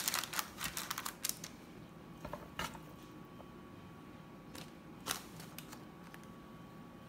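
Black plastic pasta server clicking and scraping against a metal pan and baking tray as cooked penne is scooped and dropped in. A quick run of sharp clicks at the start, then a few scattered taps.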